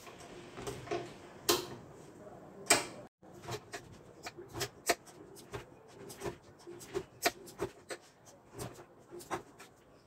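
Knife slicing a roll of layered yufka dough into erişte noodle strips in a wooden holder. Each stroke is a short, sharp tap or scrape: a few slow strokes at first, then a quicker, uneven run of about two to three a second after about three seconds.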